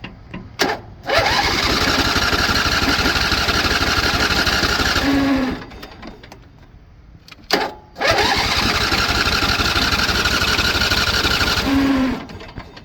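Electric starter cranking the Briggs & Stratton 20 HP engine of a Scotts riding mower, powered from a jump pack. It cranks in two long tries of about four seconds each, each cut off abruptly, without the engine catching.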